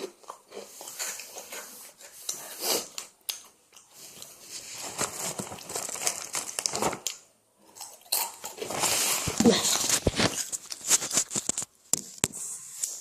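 Plastic snack bag crinkling and being torn open, in irregular rustling bursts that are loudest near the end.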